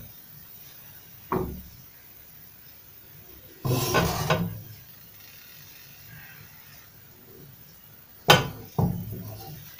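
A frying pan being shifted, lifted and set back down on a gas stove's metal grate. There is a knock about a second in, a longer scraping clatter around four seconds, and two sharp knocks near the end as the pan comes back down.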